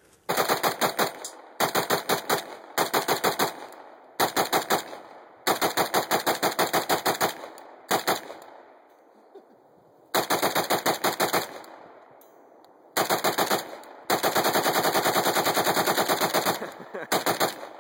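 Gunfire in about ten rapid bursts of evenly spaced shots, roughly eight shots a second, with short pauses between bursts. The longest string comes about two-thirds of the way through.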